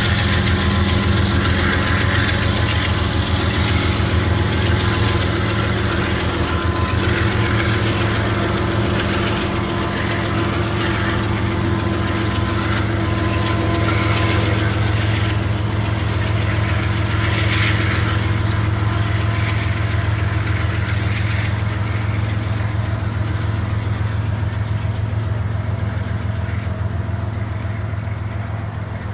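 Freight train running by with its diesel locomotive engines droning and steady wheel clatter on the rails, easing off slightly near the end.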